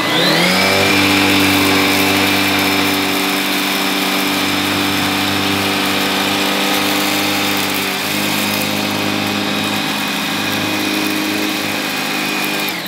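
Gtech AirRam K9 cordless upright vacuum cleaner running: the motor spins up quickly to a steady whine, holds while the cleaner is pushed forward and back over dirt on carpet, and winds down at the end as it is switched off.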